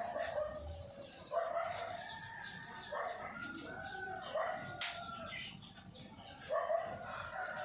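Drawn-out animal calls in three bouts, with a sharp click between the second and third.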